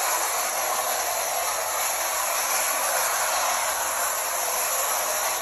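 Clockwork tin toy train running round a tin track: a steady whirring rattle from its wind-up motor and wheels on the tinplate.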